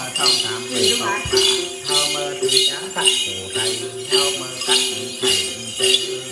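Clusters of small jingle bells (xóc nhạc) shaken by then dancers in a steady beat, about two shakes a second, over accompanying music with a repeating melody.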